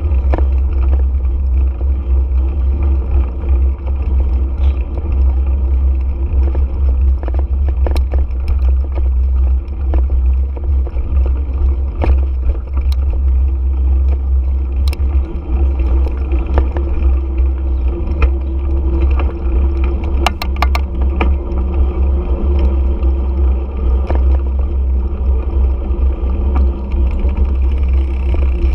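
Steady low rumble of a motorcycle being ridden slowly, picked up by a camera mounted on the bike, with scattered clicks and rattles.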